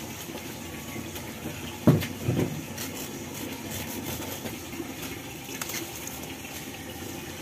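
Water running steadily from an outdoor tap into a bucket, with a sharp knock about two seconds in followed by brief rustling of palm fronds being handled.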